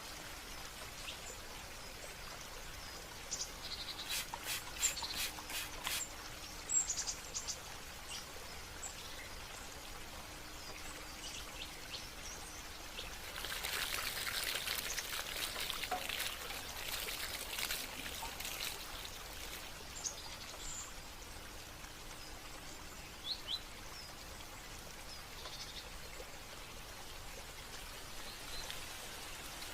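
Water trickling steadily, with small birds chirping now and then. A louder, busier run of quick high sounds comes about halfway through.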